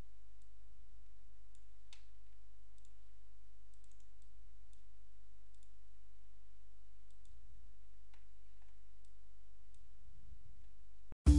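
Faint computer mouse clicks, scattered irregularly, over a steady low hum.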